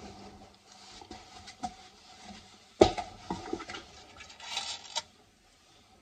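Handling noise from working on an alarm control panel and its wiring: scattered light clicks and rustling, with one sharp knock about three seconds in. The sound cuts off abruptly about five seconds in.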